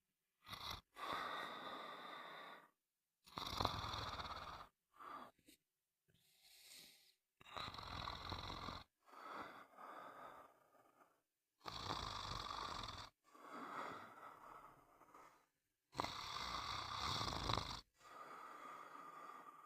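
Snoring: about ten snoring breaths in a row, each one to two seconds long, with short silent gaps between them.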